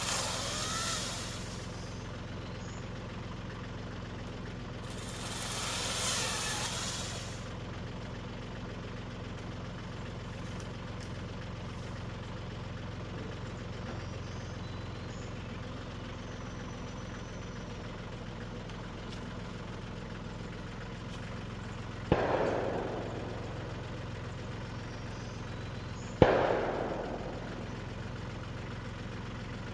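Tractor engine running steadily at idle. Two sharp shotgun shots come in the second half, about four seconds apart, each with a short echoing tail. Near the start and about six seconds in, two brief swells of rushing noise.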